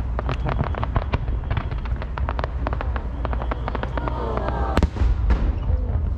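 Aerial fireworks display: a rapid, irregular string of pops and crackles from bursting shells, with one loud bang a little under five seconds in.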